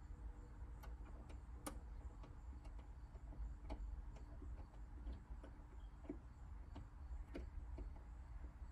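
Scattered light clicks and ticks at an irregular pace, small hand-work noises from handling speaker wires and terminals, over a steady low hum.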